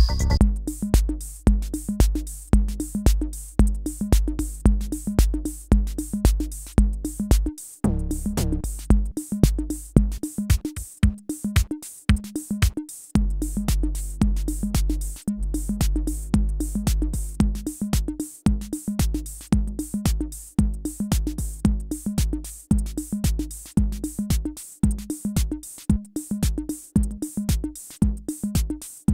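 Roland TR-6S drum machine playing an electronic drum pattern: a steady kick about twice a second with hi-hat ticks over it. The bass drum is being switched between TR-909 kick models, and the kick drops out for a moment twice.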